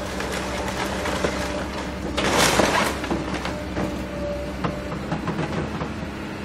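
Caterpillar hydraulic excavator's engine running steadily while its bucket tears into a wood-framed house, wood cracking and splintering. A loud crash of falling debris comes about two seconds in, followed by scattered snapping and cracking of boards.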